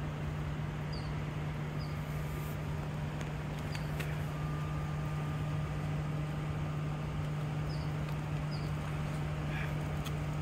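Steady low hum under an even background hiss, with a few faint short high chirps and soft clicks scattered through.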